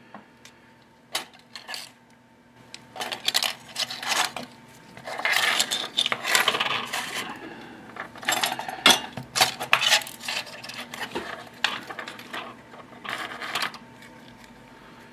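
Clicks, clinks and scraping rattles of small metal and circuit-board parts from a dismantled 3.5-inch floppy drive being handled and set down on a workbench, coming in irregular bursts.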